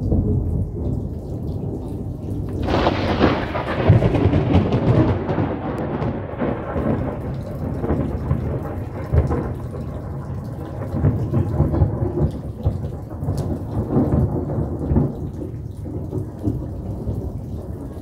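Thunderstorm: a sharp thunderclap nearly three seconds in, followed by a long rolling rumble that slowly dies away, over steady heavy rain.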